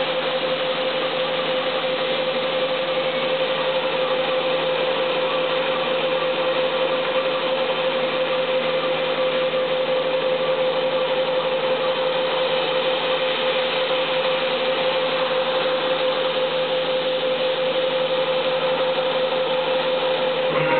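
Haas TM-1 CNC milling machine running a threadmill that cuts grooves into Delrin rod: a steady machining noise with one unchanging whine that holds the same pitch throughout.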